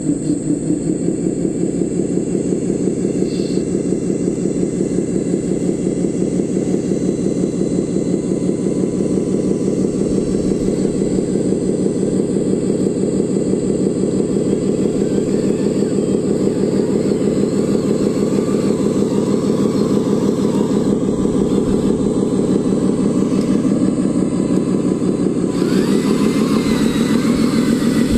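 Engine sound of a radio-controlled model Scania dump truck driving slowly under load: a steady, rapid, even chugging.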